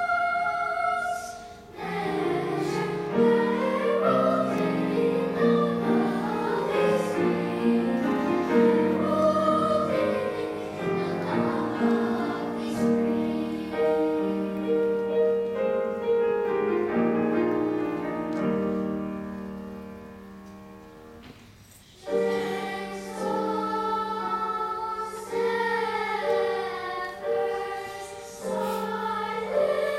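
Children's school choir singing in chorus with piano accompaniment. The singing softens and fades a few seconds before the middle of the second half, then comes back strongly about 22 seconds in.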